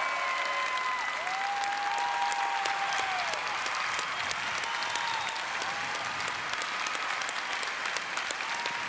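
Studio audience applauding steadily, with a few long cheering voices held over the clapping.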